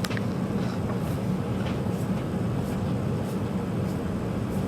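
Gas water heaters running with their burners firing: a steady low hum and rumble, with a few faint ticks.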